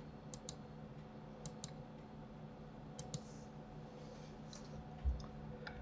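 Faint clicking of a computer mouse and keyboard, mostly in quick pairs about every second and a half, over a faint steady hum. A dull low thump about five seconds in.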